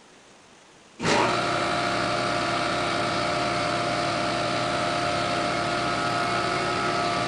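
A machine starts abruptly about a second in and keeps running steadily: a loud, even rushing noise with a steady hum of a few fixed tones.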